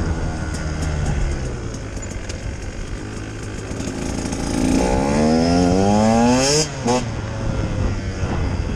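2018 Husqvarna TE 150 two-stroke enduro engine running at low revs, then opened up, its pitch climbing steadily for about two seconds before the throttle is shut off abruptly and it falls back to a low run.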